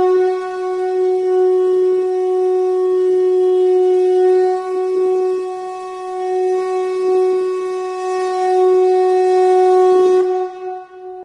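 A conch shell (shankha) blown in one long, steady note that swells slightly in loudness and dies away near the end.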